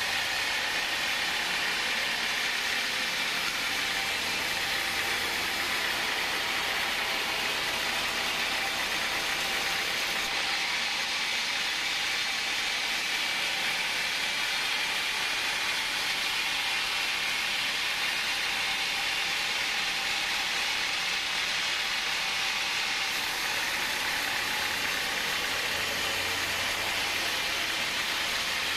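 Band sawmill blade running steadily through a large hardwood log on a rail log carriage, a continuous even cutting noise with the saw's machinery running underneath.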